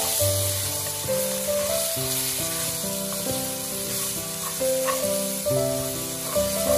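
Pork ribs sizzling in hot oil in a wok as a spatula turns them, frying the surface water off the meat. Background music with steady notes plays over it.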